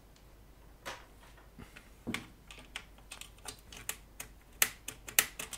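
Irregular clicks and taps of hands handling a cable and parts inside an open rackmount unit's metal chassis. The clicks come more often and get sharper in the second half, and the two loudest fall near the end.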